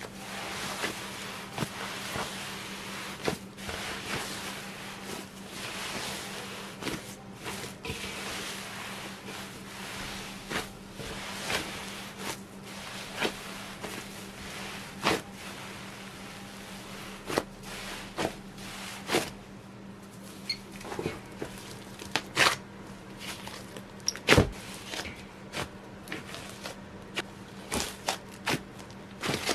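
Hands kneading and stretching a large batch of slime: soft squishing broken by irregular sharp pops and clicks, one louder pop about two-thirds of the way through, over a faint steady hum.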